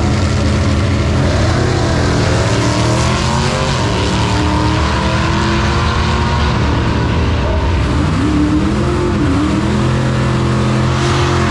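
Drag-racing pickup truck's engine at full throttle down the strip, its pitch climbing twice as it pulls through the gears.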